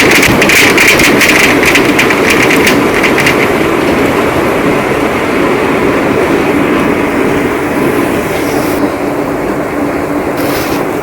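Heavy rain pouring steadily, with a dense crackle of close drops striking for the first three seconds or so before it eases.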